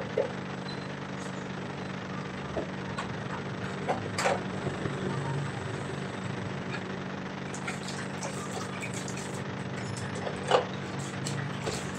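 Dishes and plastic basins clinking and knocking now and then as they are washed by hand, with the clearest knocks about four seconds in and again near the end, over a steady low hum.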